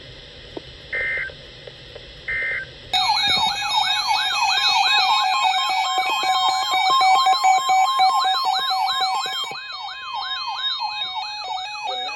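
Three short electronic data bursts about a second apart, the header tones of an Emergency Alert System message. About three seconds in, a loud alert sound starts: many sirens wailing at once, rising and falling over one another, with a steady tone held through the middle of it.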